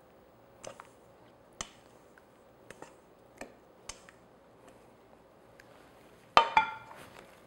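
Spatula knocking and scraping against a stainless steel mixing bowl while chocolate mousse is scraped out: a scatter of light clicks, then a louder metallic clank with a short ring near the end.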